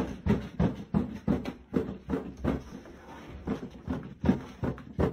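Footsteps on a hard floor, a person walking at a steady brisk pace of about two to three steps a second.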